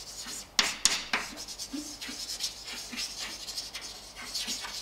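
Chalk scratching on a blackboard during writing: a run of short strokes, with a few sharper taps in the first second or so.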